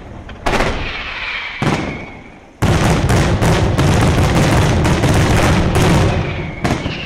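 Daytime fireworks: aerial shells bursting with sharp bangs, two single reports followed by a rapid volley of bangs lasting about four seconds and one last bang, each ringing out briefly after it.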